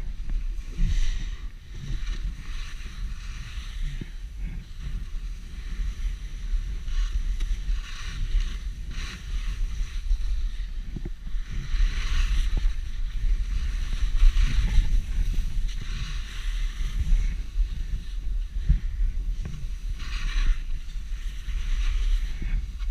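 Skis sliding and hissing on packed snow, the hiss swelling in repeated bursts as the skier turns, over steady low wind noise on the microphone from downhill speed.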